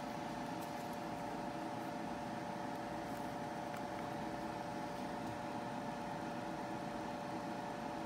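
Steady background hum made of several steady tones, with no injector clicking at all: the cleaned fuel injector on the pulse tester stays silent, the sign of a stuck injector.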